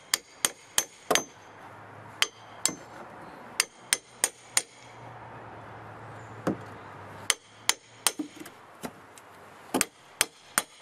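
Claw hammer striking a short steel pry bar to drive it under a deck stair tread: about twenty sharp, ringing metallic clinks in irregular runs with pauses between them.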